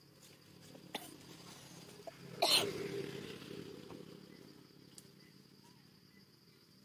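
Steady faint insect chirring, broken about two and a half seconds in by one short, sharp, cough-like burst that is the loudest sound. There are a few faint clicks near one second and near five seconds.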